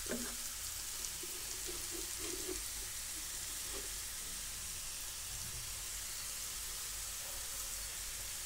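Chopped Chinese cabbage, carrot, capsicum and tomato sizzling steadily in a hot pan.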